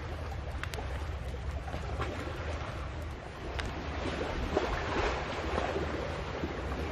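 Steady outdoor rumble of wind and surf with wind buffeting the microphone, a few light clicks early on, and louder irregular rustling and scraping from about four seconds in.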